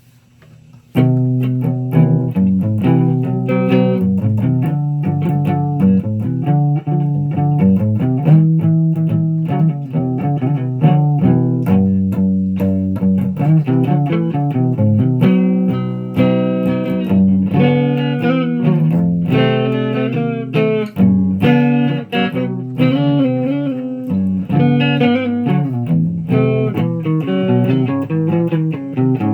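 Electric guitar played through an amplifier: a steady run of picked notes that starts about a second in.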